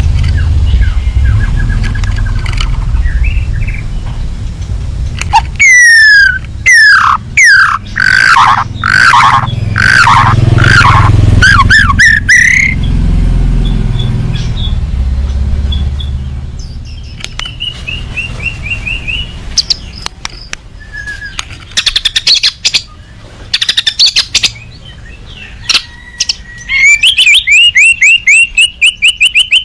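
White-rumped shama (murai batu) singing agitatedly, the provocative song that sets other shamas answering. It gives a rapid series of loud down-slurred whistles, then buzzy phrases and dry rattling clicks, and near the end a fast run of notes. A low rumble runs under the first half.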